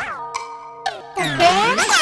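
Children's music edited with cartoon boing-style swooping pitch effects: a held chiming tone for about the first second, then louder, faster swoops that dip and rise again from a little past a second in.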